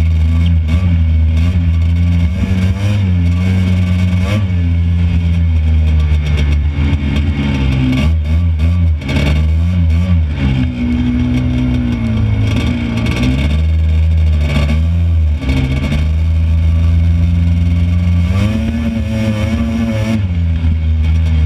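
Honda FL400 Pilot buggy's single-cylinder four-stroke engine, heard on board while driving over sand, revving up and down with the throttle. Short knocks and rattles from the chassis over bumps sound throughout.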